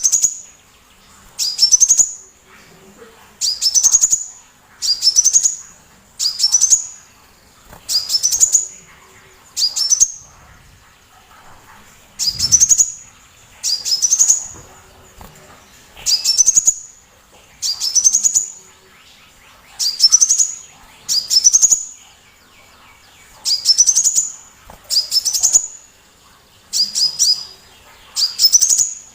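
A sunbird singing loudly: a short burst of rapid, rising, very high notes, repeated over and over at about one phrase every second and a half to two seconds.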